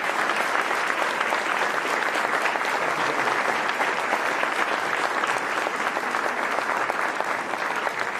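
Audience applauding steadily in welcome.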